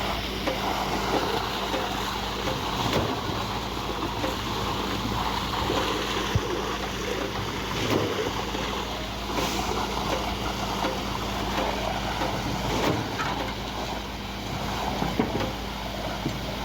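Truck-mounted concrete pump running steadily while pumping concrete: a constant diesel engine hum under a rough rushing noise.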